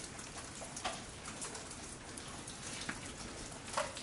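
Rain falling and water dripping inside a dilapidated building: a steady patter with a few short, sharp drips or taps through it, the clearest about a second in and near the end.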